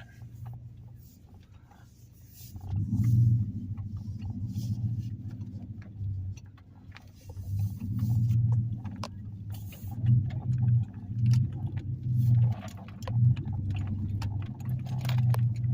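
Old Dodge pickup truck driving over a washed-out road, heard from inside the cab: the engine's low drone swells and eases with the throttle, with scattered rattles and knocks over the bumps.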